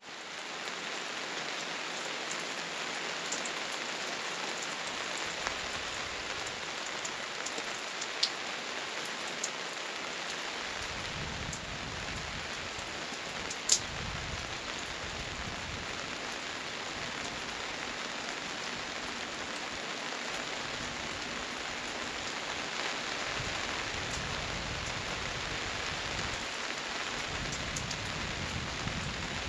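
Gentle rain falling steadily, with a few sharper drop hits standing out, the loudest about fourteen seconds in. A low rumble comes and goes from about ten seconds on.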